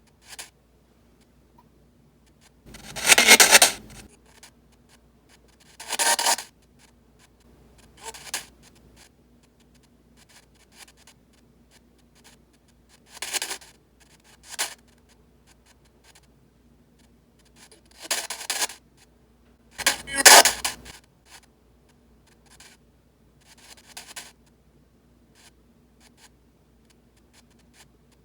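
Spirit box sweep radio played through an adjustable noise-control unit: short, irregular bursts of hissy radio static break through every few seconds, the loudest about two-thirds of the way in, with a faint steady hum in the gaps where the sweep noise is held down.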